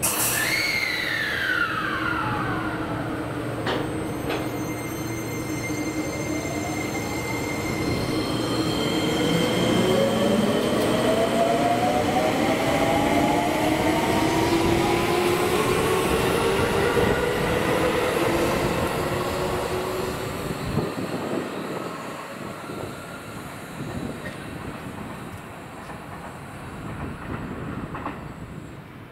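Seibu 20000 series train's Hitachi IGBT-VVVF inverter and traction motors pulling away from the platform. Just after the start a high inverter tone falls in pitch. Then several whining tones rise steadily as the train gathers speed, and the running noise builds and fades out after about twenty seconds.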